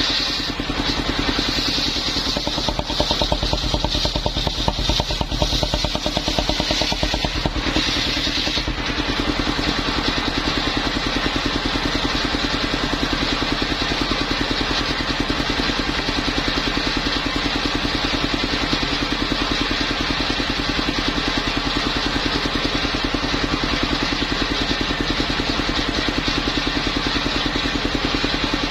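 Engine of a mobile circular sawmill running steadily at a constant speed. A high whine rides over it for the first eight or nine seconds, then stops.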